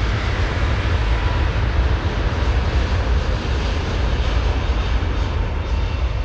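Airbus A380's four Rolls-Royce Trent 900 turbofans at takeoff power: a loud, steady jet noise with a deep rumble under an even hiss.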